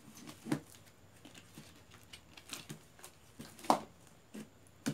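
Pink fluffy slime being squeezed and stretched by hand, giving scattered short squelches and pops, the sharpest a little before the end.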